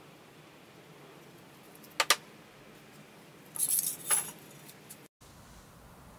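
Spray-paint cans being handled on a work table: two sharp clicks in quick succession about two seconds in, then a brief, high-pitched crackling rustle a second and a half later.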